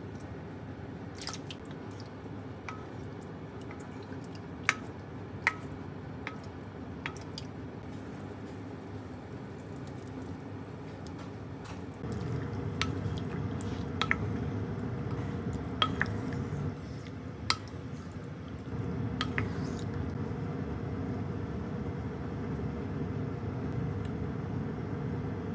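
Wet kitchen handling in a ceramic clay pot: soft tofu squishing into water and crab sticks dropped in, with scattered sharp taps of a wooden spoon and utensils against the pot. Under it runs a steady low hum that gets louder about halfway through.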